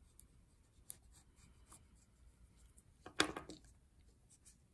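Oil pastel scratching on paper in short, faint strokes, with one louder stroke about three seconds in.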